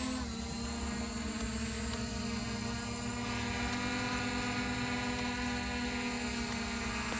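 JJRC Epik X5 Pro quadcopter's brushless motors and propellers running steadily in flight: an even, unbroken whine of several tones held at one pitch.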